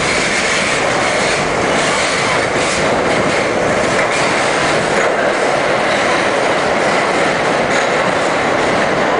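R-32 subway train running through a tunnel, heard from inside the car: a steady, loud rush and rumble of steel wheels on the rails, with faint clicks as the wheels pass over rail joints.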